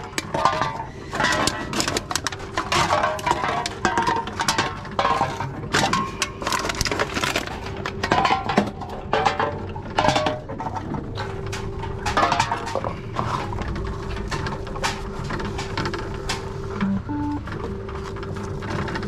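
Cans and plastic bottles being fed one after another into a Tomra reverse vending machine: repeated clattering and clinking of containers going through the intake, with the machine's motor humming steadily underneath.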